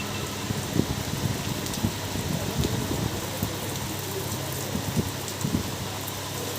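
Heavy rain pouring steadily, with a low steady hum underneath and a few short dull knocks.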